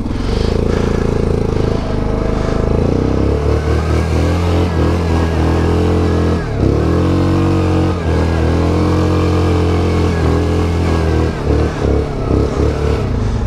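ATV engine working hard under load up a steep climb, held at steady high revs, dipping briefly twice in the middle and cutting in and out near the end as the throttle is eased and reapplied.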